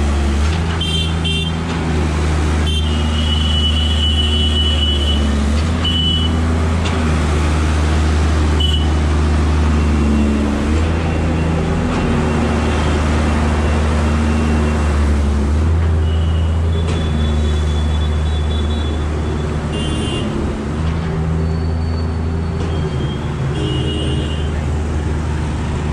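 Busy street traffic: vehicle engines running close by, with car horns honking again and again, mostly short beeps plus one longer honk of about two seconds a few seconds in.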